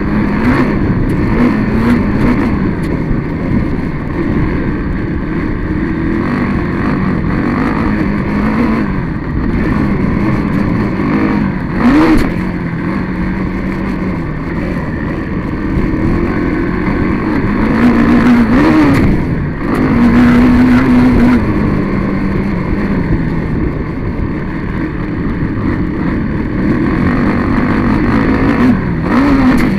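Quad (ATV) engine running hard around a dirt track, heard up close from on board. Its revs keep rising and falling, with sharp rev spikes about twelve seconds in and again near nineteen seconds.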